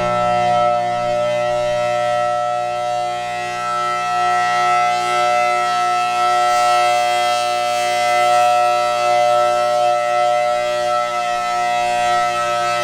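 Federal Signal Thunderbolt 1000T outdoor warning siren sounding the steady alert signal: several tones held together at constant pitch, swelling and easing slightly in loudness. It is still a little "sick", off from its proper sound, which the uploader notes remains despite the work done on it.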